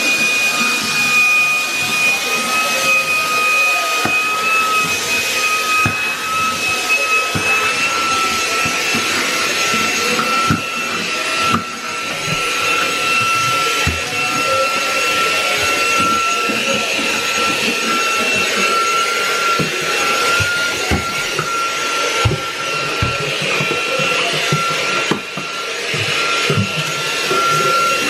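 Shark cordless handheld vacuum cleaner running continuously: a steady high-pitched motor whine over rushing airflow hiss, the pitch creeping slightly up in the first several seconds. Scattered small knocks and clicks as it works.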